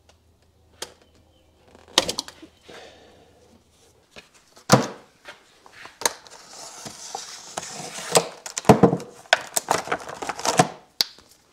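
A hand oil filter wrench and rag being worked on the N54's oil filter housing cap: a series of sharp metal clinks and knocks, with a stretch of scraping and rubbing in the middle.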